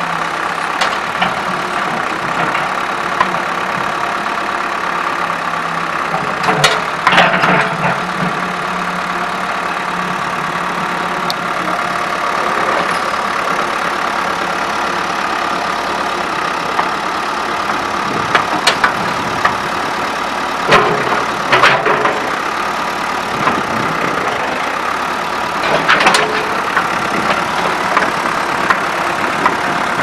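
Case backhoe's four-cylinder diesel engine running steadily, with several sharp knocks scattered through.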